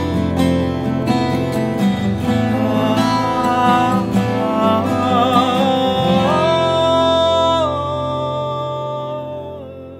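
A man singing long held notes, with vibrato, over instrumental accompaniment. Near the end he holds a higher note, then the music thins out and fades away as the song closes.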